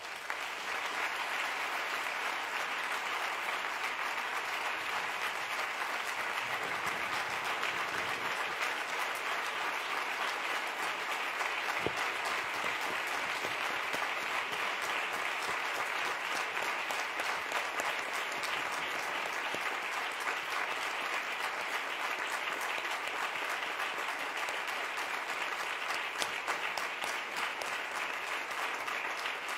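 Large audience applauding steadily in a standing ovation, a dense, even clapping that holds without a break.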